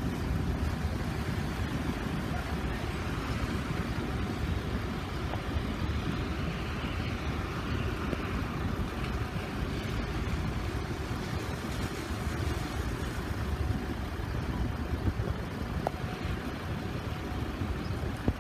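Steady low rumble of idling road vehicles waiting at the lowered level-crossing barriers, mixed with wind buffeting the microphone.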